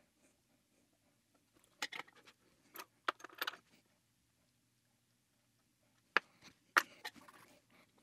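Light clicks and rattling from handling soldering tools and the circuit board at a workbench, in two short clusters: about two seconds in and again about six seconds in.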